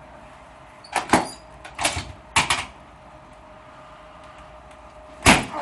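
Sharp knocks from a chiropractic adjustment: three quick pairs of hits in the first few seconds, then a single louder knock near the end, over a faint steady hum.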